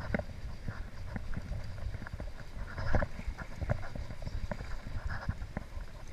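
Steady low rumble of a fast river and wind, with irregular clicks and knocks a few times a second. The loudest knock comes about halfway through.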